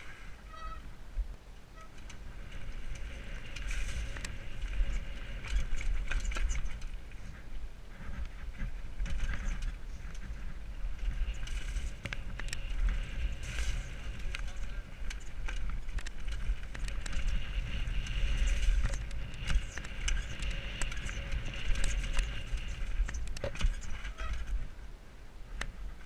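Mountain bike riding fast down a rough dirt trail, heard from a helmet camera: wind buffeting the microphone, tyres rolling over dirt and roots, and the bike rattling with sharp knocks over bumps.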